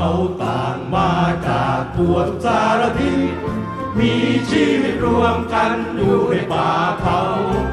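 A Thai song sung by a group of voices in chorus with instrumental backing; the singing comes in right at the start after a brief drop in level.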